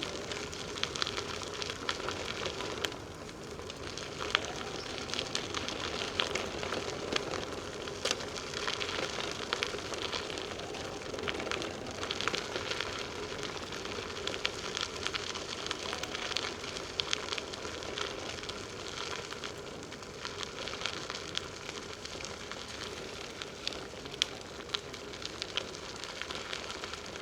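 Bicycle tyres rolling along a woodland trail: a steady crackling hiss scattered with small ticks and pops.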